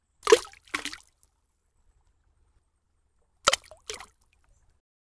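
Cartoon splash sound effects of an egg dropping into a bucket of paint: two pairs of short wet splashes, the second pair about three seconds after the first.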